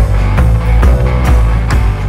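Background music with a steady beat, about two beats a second, over a sustained bass line.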